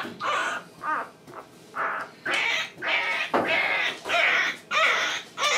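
Young English Springer Spaniel puppy squeaking and crying over and over, short high-pitched cries about two a second, which the owner puts down to hunger.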